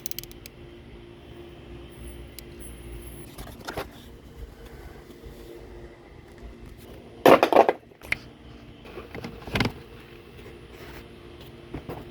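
Metal hand tools clinking and clattering during work on the engine bay, with a louder rattling clatter about seven seconds in and another near nine and a half seconds. A steady hum runs under the first few seconds.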